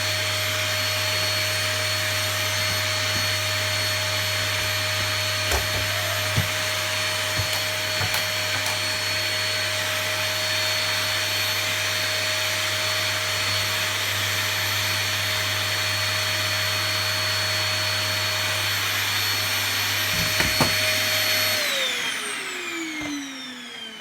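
Small 'Epic' vacuum cleaner running steadily with a constant whine and hum, with a few light knocks of the nozzle along the way. Near the end it is switched off and the motor's whine falls away in pitch as it spins down.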